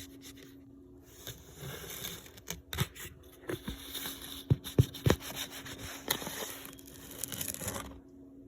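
Rustling, scraping and crinkling as a protein powder tub and its packaging are handled, with a few sharp knocks about halfway through.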